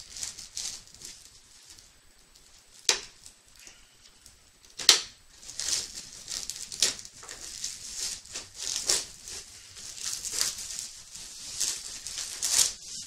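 Clear plastic wrapping crinkling and rustling as a boxed Funko Pop is handled and pulled out of it, with two sharp snaps, about three and five seconds in, the second the loudest.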